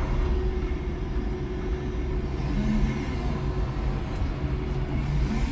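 5-ton electric forklift running, heard from inside its cab: a steady low rumble with a constant hum, and a short higher hum about two and a half seconds in.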